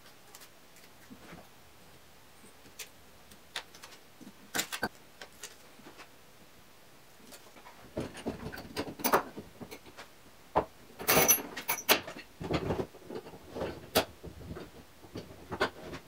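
Workshop handling noise from a homemade Moxon vise built on half-inch pipe clamps: scattered light clicks and knocks at first, then from about eight seconds in a busier run of knocks, scrapes and rattles as a pipe clamp's screw handle is turned and the clamps are worked, with a harsher scrape about eleven seconds in.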